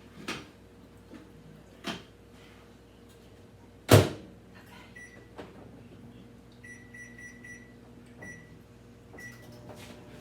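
Microwave oven being loaded and started: a couple of light knocks, then the door shutting with a loud clunk about four seconds in. Keypad beeps follow as the time is entered, and the oven starts running with a steady low hum.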